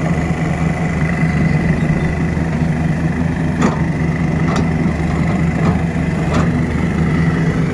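Diesel engines of a Hitachi 200 excavator and a dump truck running steadily, with a steady high whine over the engine hum. About four sharp knocks come in the second half as the bucket drops earth into the truck's steel bed.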